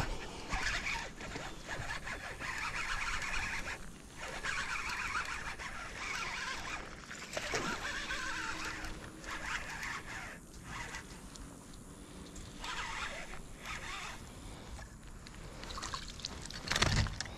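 Baitcasting reel being cranked in short stretches, a rasping whir of the gears again and again with brief pauses. Near the end a hooked bass splashes at the surface as it is drawn out of the water.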